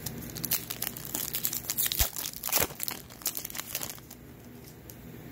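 A football trading card pack's wrapper crinkling and crackling as it is handled and torn open. The crackling is loudest about two to three seconds in and dies down after about four seconds.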